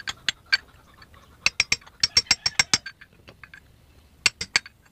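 Ratchet tool clicking in three runs of quick, sharp metal clicks, the longest about a second and a half in, as it is turned in a scooter torque drive's bearing bore to get the end bearing out.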